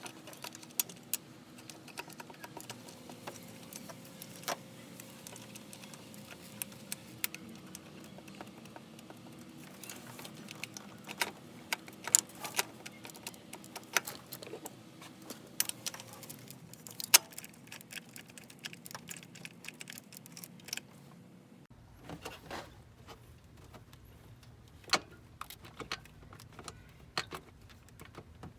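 Irregular light metallic clicks and clinks of hand tools and metal parts being handled, over a faint steady hum that drops out about three quarters of the way through.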